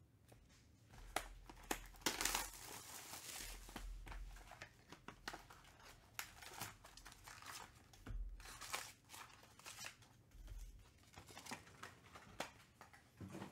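Quiet handling of a cardboard trading-card box and its wrapped packs: the flap opened, packs pulled out and stacked, with irregular crinkling and rustling of the wrappers and small taps and scrapes of card and cardboard.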